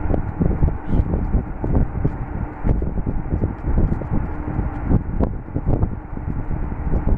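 Steady low rumbling noise on the microphone, with many short clicks and smacks of eating rice by hand from a plate: fingers mixing the rice and chewing.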